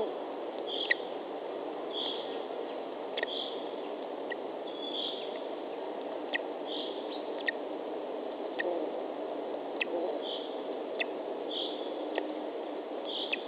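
A short, high, wheezy sound repeating about every second and a half at an eagle nest, over a steady background hiss, with scattered sharp clicks in between. The uploader takes it for the lesser spotted eagle chick's heavy breathing.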